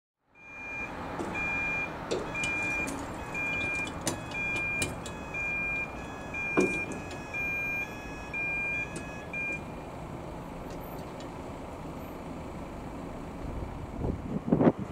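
Level crossing warning alarm beeping a two-note tone about once a second, then falling silent about nine and a half seconds in, with a few sharp clicks along the way. Near the end the rumble of an approaching Irish Rail 8510 class DART electric train begins.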